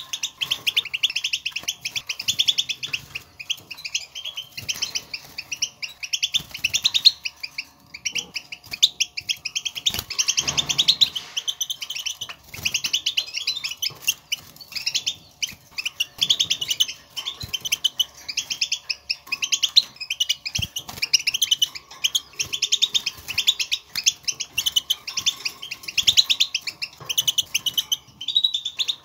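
European goldfinch chatter: a dense run of rapid, high twittering calls with only short breaks, the contact twitter goldfinches use to call to each other, which sets caged goldfinches singing.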